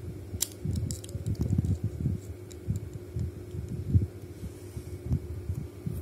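Fingers slowly turning the dial of a Master dial combination padlock held close to the microphone: low uneven rubbing and handling bumps, with a few light, sharp clicks in the first two seconds.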